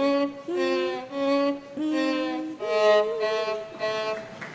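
Violin playing a slow melody of separate held notes, changing note about every half second to a second.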